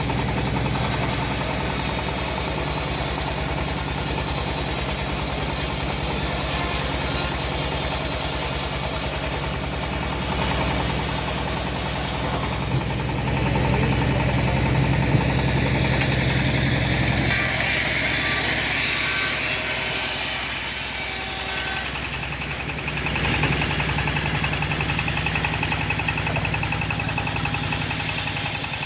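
Engine of a homemade bandsaw machine running steadily. A little past the middle its low hum drops away for several seconds, then comes back.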